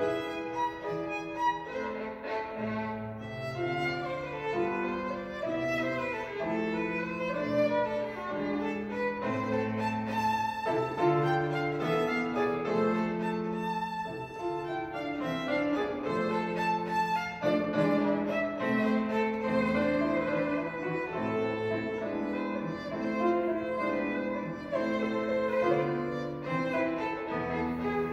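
Violin playing a melody with grand piano accompaniment, with lower piano notes sounding beneath the violin line.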